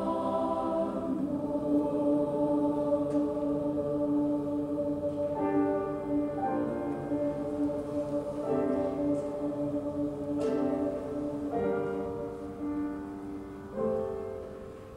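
Middle-school chorus singing held notes with piano accompaniment. From about five seconds in, piano chords are struck every second or two under the voices, and the music grows quieter toward the end.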